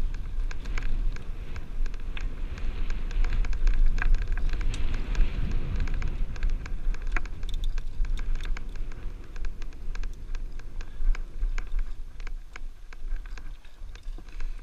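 Mountain bike rattling and clattering over bumpy slickrock: a dense run of small clicks and knocks over a steady low rumble of wind buffeting the helmet-mounted microphone.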